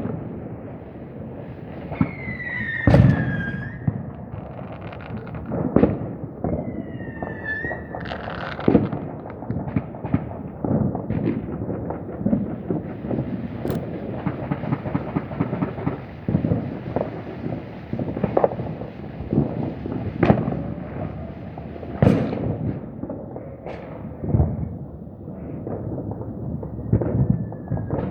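Fireworks going off all around: a steady crackle of firecrackers under many irregular bangs, near and far. Twice, a short whistle falls in pitch and ends in a sharp bang.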